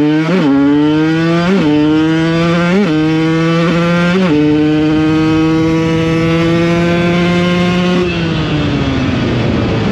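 Small two-stroke motorcycle engine pulling through the gears. The engine note breaks briefly four times, about a second apart, at each gear change, then holds steady at cruising revs. About eight seconds in the note falls away as the throttle closes.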